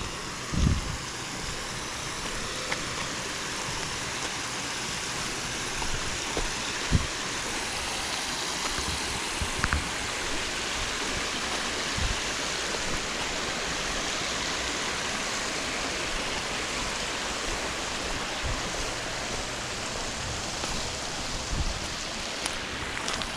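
Flowing stream water rushing steadily as an even hiss, with a few brief low thumps now and then.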